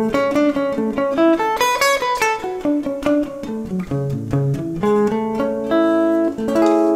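Gibson Les Paul electric guitar playing a quick single-note chord-tone phrase that climbs and then falls, ending on several notes left ringing together near the end.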